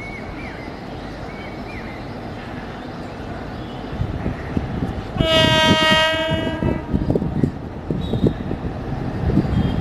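WAG-7 electric locomotive sounding its horn in a single blast of under two seconds, about five seconds in, as the freight train approaches on a steel truss rail bridge. A low rumble from the train builds from about four seconds in, and wheel clatter and knocking on the rails follow the horn.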